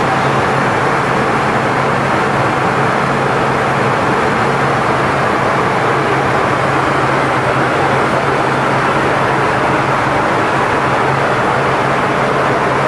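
Steady cabin noise inside a Tupolev Tu-134B-3 airliner in flight: a constant rush of air and engine drone from its two rear-mounted Soloviev D-30 turbofans, with an even low hum beneath.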